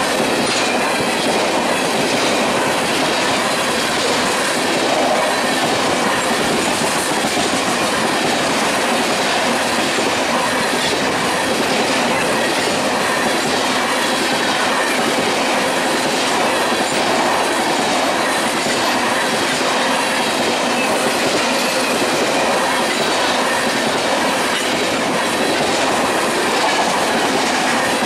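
Union Pacific freight train of tank cars rolling past: a steady noise of steel wheels on rail with repeated clicking as the trucks cross rail joints.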